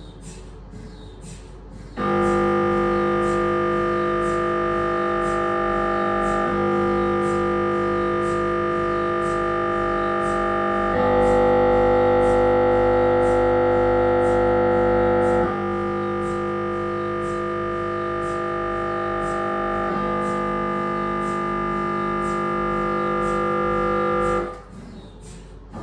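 Siemens Magnetom Avanto 1.5 T MRI scanner's gradient coils running a scan sequence: a loud, steady, many-toned buzzing drone that starts about two seconds in, changes pitch every four to five seconds, and stops shortly before the end. Under it runs a faint regular ticking, about one and a half ticks a second.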